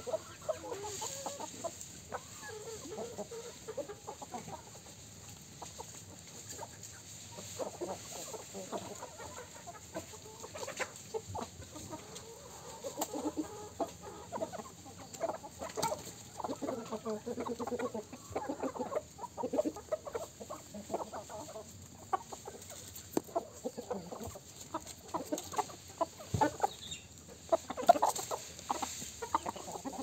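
A flock of chickens, hens and roosters, clucking in many short overlapping calls throughout as they forage, with a few sharp clicks here and there.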